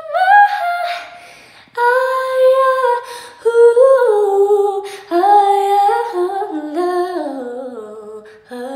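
A woman singing unaccompanied, holding long notes on a vowel and sliding through melismatic runs in several phrases with short breaths between them. Over the last few seconds the melody steps downward.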